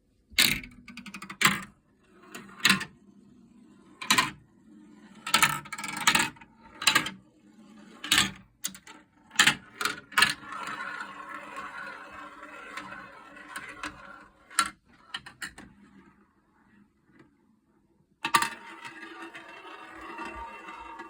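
Marbles running down a marble run with four tiers of large funnel bowls: a string of sharp separate clacks at first, then a steady rolling rattle as marbles circle the bowls. The rattle breaks off briefly near the end, then starts again.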